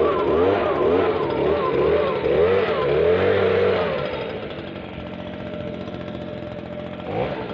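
Small two-stroke engine of a Stihl BG56 leaf blower running with its pitch rising and falling about twice a second, as if the throttle were being pumped or the engine were surging. About four seconds in, it drops back to a quieter, steady idle.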